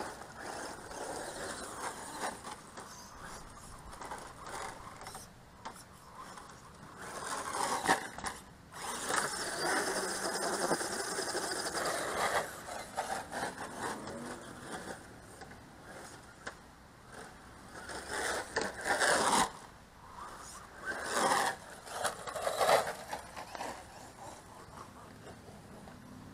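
Brutus RC monster truck driving on loose dirt, its motor whining up and down in bursts of throttle while the tyres scrape and scrabble. The longest run comes about 8 to 12 seconds in, with shorter revving bursts around 18 to 23 seconds in.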